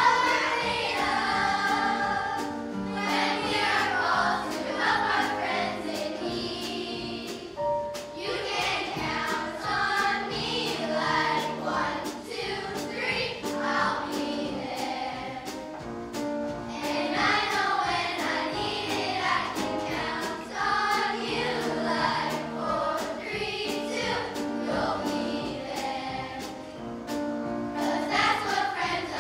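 Middle school children's choir singing a pop song in parts, with instrumental accompaniment and a steady light beat.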